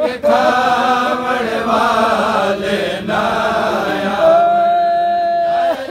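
A group of men chanting a noha, a Shia mourning lament, in unison after a lead reciter reading from a sheet; near the end one long note is held steady.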